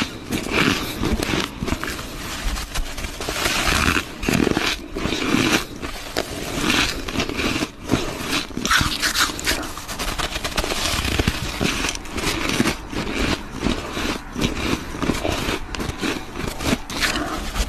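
Close-miked bites into hard, squeaky ice: crunching and squeaking cracks, one bite after another with short pauses.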